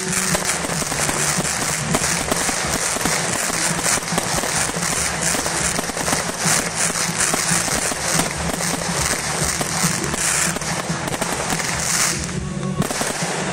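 Fireworks display going off: aerial shells bursting and ground fountains spraying, a dense, continuous run of pops and crackles that thins briefly near the end. Music plays underneath.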